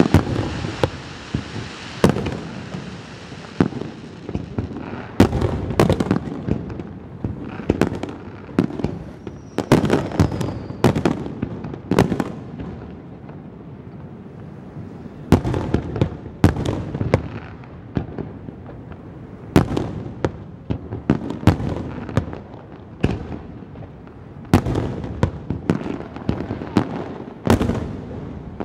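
Aerial firework shells bursting one after another in an irregular barrage of sharp bangs, with a hiss during the first few seconds and a brief lull midway.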